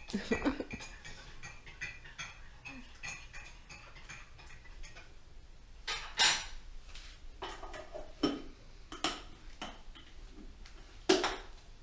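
Kitchen clatter: dishes and cutlery clinking on and off, with a few louder knocks in the second half.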